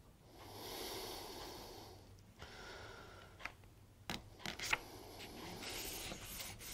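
Faint breathing through the nose, two slow breaths in the first few seconds, with a few light taps and soft paper rustling from printer-paper sheets being handled and pressed flat, the taps clustered about four seconds in.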